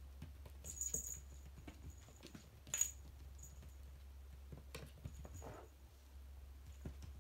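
A small kitten's paws scampering, pouncing and landing on a hardwood floor: light irregular taps and scrabbles, with one sharper tap about three seconds in.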